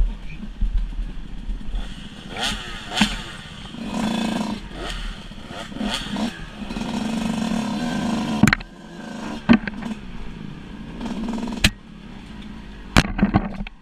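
Off-road dirt bike engines running along a rough trail, heard up close from the rider's own bike, revving up and down a couple of times early in the stretch. Sharp knocks from the bike jolting over bumps come several times in the second half.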